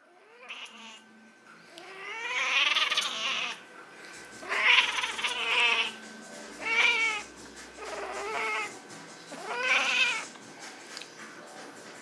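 Persian cat in heat calling: a series of about six drawn-out yowls, each rising and falling in pitch, with short pauses between them.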